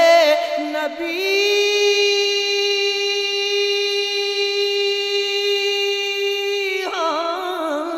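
Naat singing without instruments: a wavering, ornamented vocal line for about a second, then a single note held very steadily for about six seconds. The wavering melody returns near the end.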